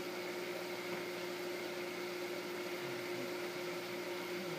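Kitchen exhaust fan running: a steady hum over a constant airy hiss.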